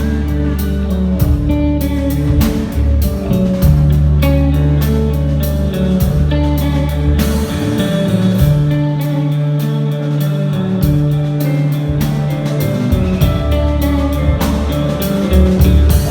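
Live band playing instrumentally at a sound check: a drum kit keeping a steady beat with cymbal hits, over held bass notes and guitar. The low bass notes drop out for a few seconds about halfway through.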